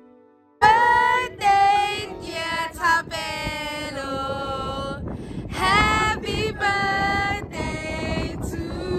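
A group of women and children singing together loudly. The singing starts suddenly about half a second in and goes in phrases with short breaks.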